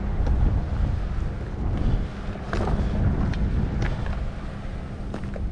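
Wind buffeting the microphone, a steady low rumble, with a few light sharp clicks around the middle.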